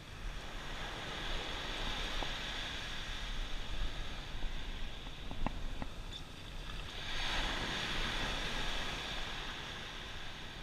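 Small surf waves washing up onto a sandy beach, the wash swelling twice, with a low rumble of wind on the microphone. A few light clicks come about halfway through.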